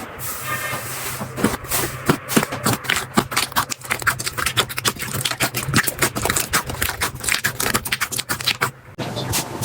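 Slime being squeezed and pressed by hand, giving a quick, irregular run of sticky clicks and crackles.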